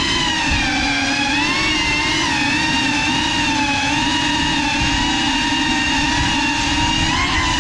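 GEPRC Cinelog 35 cinewhoop's brushless motors and ducted propellers whining steadily as it flies, the pitch swelling briefly with each throttle punch: at the start, about a second and a half in, and near the end.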